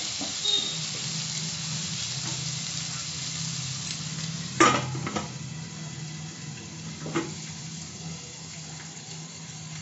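Onions and fenugreek leaves sizzling steadily in oil in a non-stick pan. A sharp clink about four and a half seconds in comes as a glass lid is set on the pan, a lighter knock follows a couple of seconds later, and the sizzle is a little quieter once the lid is on.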